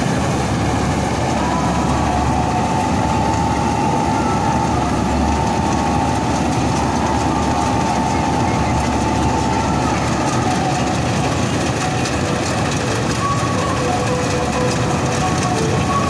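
Avtar 6500 self-propelled combine harvester running and cutting standing wheat close by: a loud, steady mechanical din of engine and threshing machinery with a thin whine over it.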